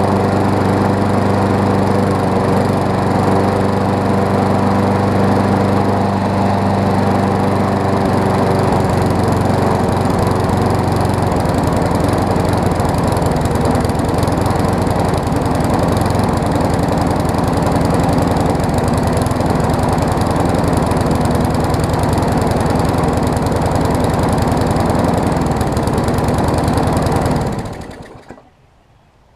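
Briggs & Stratton Classic single-cylinder engine on a Craftsman push mower running, steady for the first several seconds, then less even, and cutting off a little before the end. It runs but misbehaves with the choke, which the owner takes for classic carburetor diaphragm trouble.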